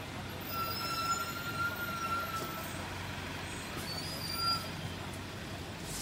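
City street traffic ambience: a steady rumble of engines and traffic. A high, steady squeal starts about half a second in and lasts about two seconds, and a brief second squeal comes near the end.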